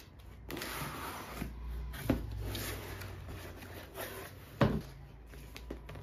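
Cardboard box being opened by hand: the flaps rustle and scrape, with a sharp knock about two seconds in and a louder knock later on.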